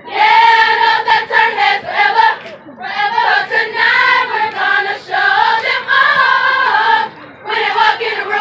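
A large group of women singing together in unison, in phrases broken by short pauses about three seconds in and again near seven seconds.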